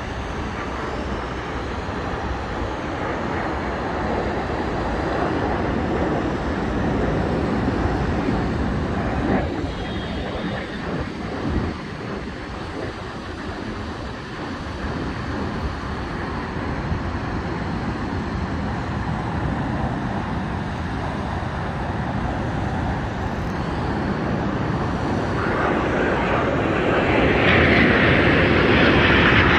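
Jet aircraft flying in formation at an air display, a steady rushing engine noise that grows louder over the last few seconds as the formation comes closer.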